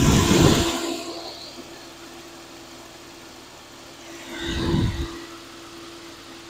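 Porsche 996 Carrera 4S flat-six engine idling steadily, heard close up in the engine bay, with no ticking: the engine runs strong. Two short louder surges of low noise, one at the start and one about four and a half seconds in, stand out over the steady hum.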